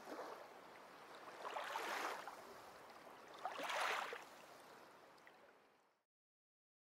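Sea waves washing in, the water noise swelling and ebbing about every two seconds, then fading away about five seconds in.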